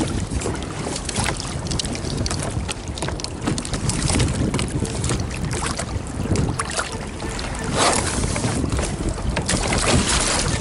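Wind buffeting the microphone, with choppy water splashing and slapping against a kayak's hull.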